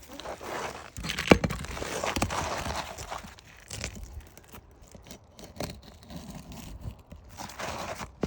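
Utility knife blade scoring and tearing through a laminated asphalt architectural shingle in rough scraping strokes, with a sharp knock about a second in; the blade is dull.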